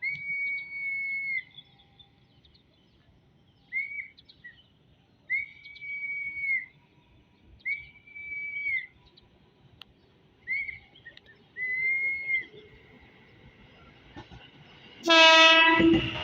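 A run of six high, whistle-like tones at irregular intervals, each lasting up to about a second and a half. Near the end comes one loud horn blast of about a second from a JR 205-series electric commuter train.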